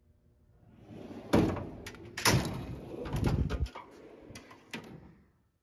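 Steel toolbox drawers on ball-bearing slides being worked: a drawer rolls and shuts with two sharp clunks, then another rolls along its slides with a rumble, followed by two light clicks near the end.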